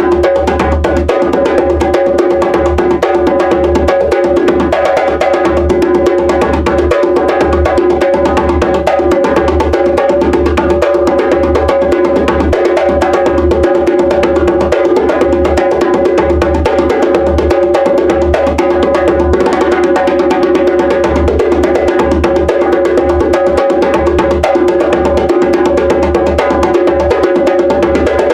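Drumming a steady, fast, unbroken rhythm: the rhythm for the nature element of the Dagara five-element system, played for magic and transformation.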